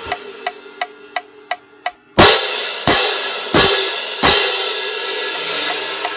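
A pair of marching crash cymbals struck together four times in a row, about two-thirds of a second apart, each crash ringing on afterwards. Over this, a metronome clicks about three times a second.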